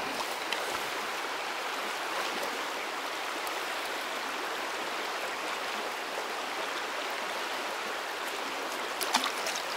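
Shallow river running fast over stones: a steady rushing and rippling of water.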